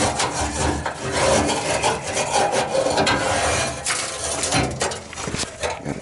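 Wire brush scraping and scrubbing back and forth against the sheet-metal burner slots of a gas furnace, an uneven rasping that goes on with short strokes, clearing out clogged soot and debris.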